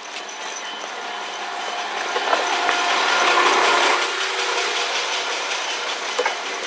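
Train running along the track, heard from inside the carriage: a rushing rattle of wheels on rails that swells about three seconds in, with thin steady squealing tones and a few sharp clicks.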